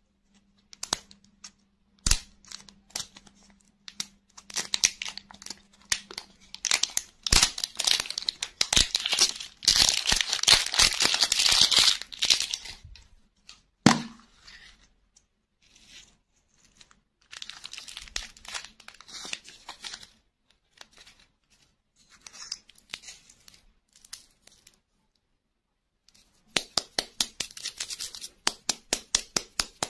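A plastic candy wrapper being torn and crinkled by hand, coming in crackly bursts with clicks between them. About halfway through there is one sharp plastic snap as the capsule inside the lollipop ball pops open. Near the end comes a fast run of crinkles from a smaller wrapper.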